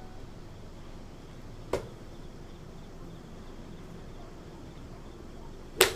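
Golf club striking a ball: one sharp crack near the end, with a fainter click about two seconds in.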